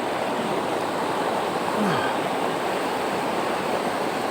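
Fast-flowing river water rushing over rocks, a steady rushing noise.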